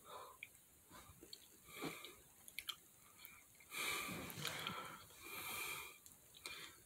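A man breathing: two long, audible breaths a little past the middle, with small mouth clicks and lip smacks around them.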